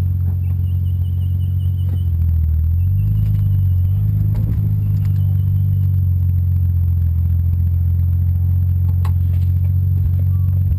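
Nissan Skyline R33 GTS-t's turbocharged straight-six engine running at low, steady revs, picking up slightly about three seconds in, with a faint high whine in the first few seconds.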